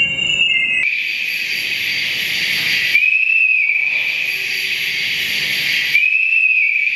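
Hearing-aid feedback whistles, amplified through a microphone and processed by computer: high whistling tones, with a bright hiss laid over them from about a second in. A short tone swells and falls away about three seconds in and again about six seconds in.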